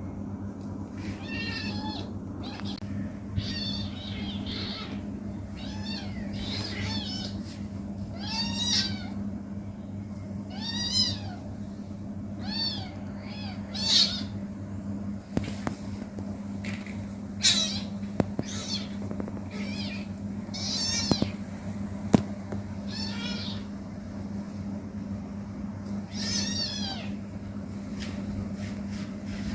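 A kitten mewing over and over in short, high-pitched calls every second or two, over a steady low hum, with a few sharp knocks.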